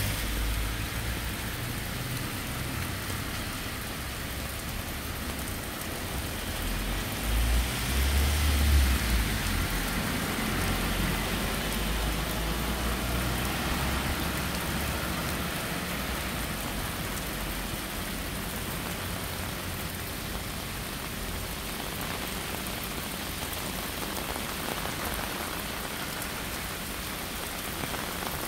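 Heavy rain pouring onto a flooded street, a steady hiss of drops splashing into standing water. A low rumble swells about seven seconds in and fades within a couple of seconds.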